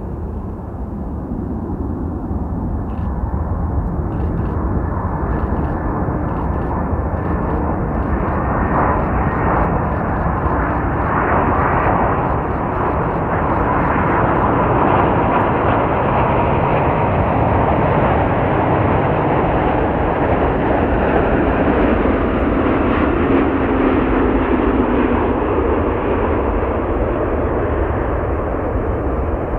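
Boeing 787 Dreamliner's jet engines on final approach. The engine rush grows louder over the first half as the airliner nears and then holds steady, with a faint high whine over it.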